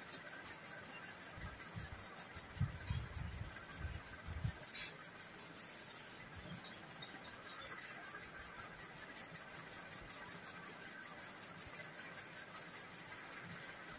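Quiet eating by hand from steel plates: chewing and fingers mixing rice against the metal, with a few soft low knocks about two to four seconds in, over a steady faint hiss.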